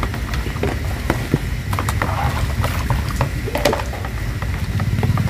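Plastic dishware being washed by hand: a plastic colander and basins scrubbed with a sponge and knocking together in soapy water, giving irregular clicks and clatters. A steady low rumble runs underneath.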